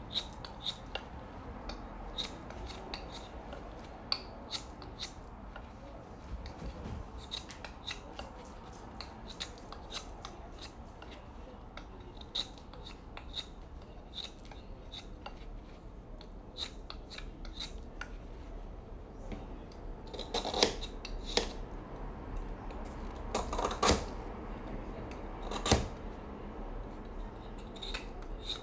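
A knife blade shaving and chipping a block of clear ice by hand: a steady run of short scraping strokes, with a few louder, sharper strokes about two-thirds of the way through.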